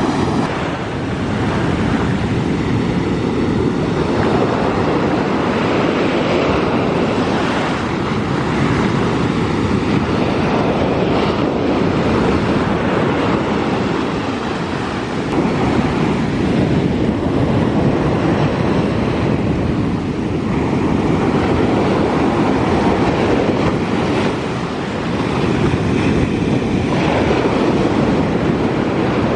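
Big sea waves breaking and surging onto the beach in a loud, continuous rush that swells and eases every few seconds, with wind blowing on the microphone.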